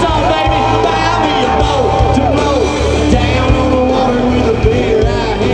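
Country band playing loudly live, with singing over it, including one long held note.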